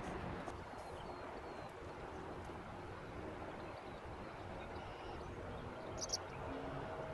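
Steady low rumble of the tanker Damia Desgagnés' engine as the ship moves past at close range, with a short high chirp about six seconds in.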